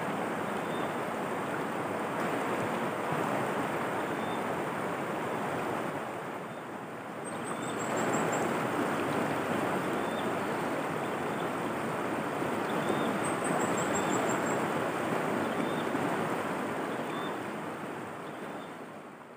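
Rushing water of a shallow river running fast over stones, a steady dense wash. It dips briefly about a third of the way in, comes back fuller, then fades at the end.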